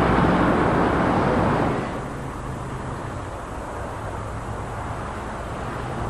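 Road traffic: a vehicle goes by loudly for the first two seconds, then steady engine hum and road noise.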